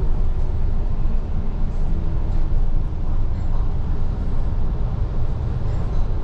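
Steady low rumble of a moving double-decker bus, its engine and road noise heard from inside the upper-deck cabin.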